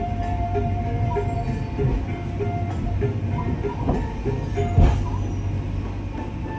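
Passenger train running on the rails, a steady rumble with one loud clank about five seconds in, under background music.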